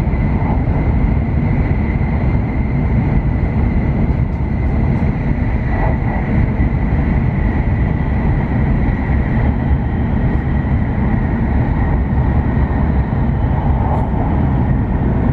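Cabin running noise of a JR West W7 series Shinkansen at speed: a steady low rumble from the wheels on the rails, with a faint steady high whine over it.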